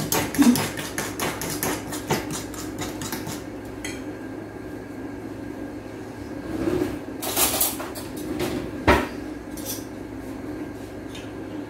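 Metal utensil beating eggs and cream in a glass bowl: rapid clinking against the glass for the first three or so seconds, then it stops. A few scattered kitchen knocks follow, the sharpest about nine seconds in.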